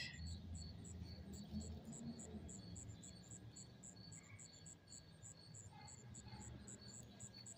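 Crickets chirping in an even pulse, roughly three chirps a second, faint over a low background rumble.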